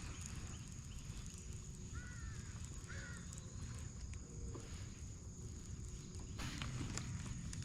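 Quiet outdoor ambience with a low steady rumble, two short chirps about two and three seconds in, and a few light clicks near the end.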